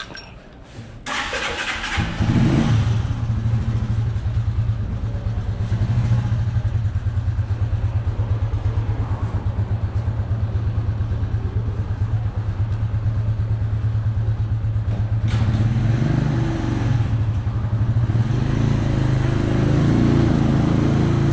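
Italika DT 125 motorcycle's single-cylinder four-stroke engine started about a second in, then running steadily with a fast even putter, a little louder near the end.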